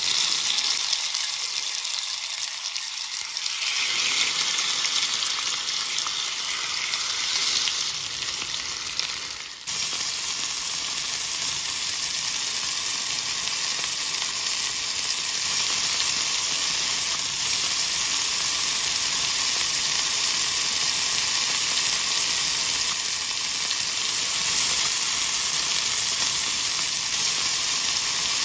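Marinated chicken skewers sizzling in hot oil on a cast-iron grill pan over medium-high heat: a loud, steady frying hiss, with a short dip and abrupt change about ten seconds in.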